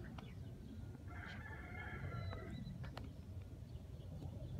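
A rooster crowing once, a single held call of about a second and a half, over a steady low rumble.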